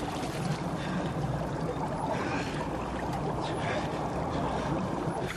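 Underwater ambience: a steady, muffled rush of water and bubbles over a low, even drone.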